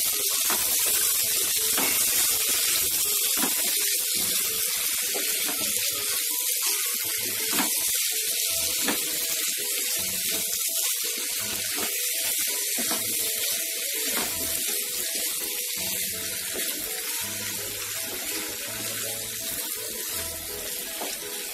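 Kohlrabi and potato cubes sizzling in oil and masala in a frying pan as they are stirred with a spatula: a steady hiss that slowly gets quieter toward the end.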